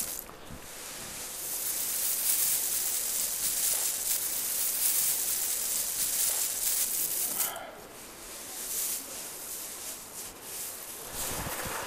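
Small grain being winnowed by hand: handfuls tossed up and trickling back down onto a cloth, making a steady hissing rustle. It grows quieter for a few seconds past the middle.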